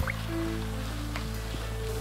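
Background music with long held low notes and short higher notes over them.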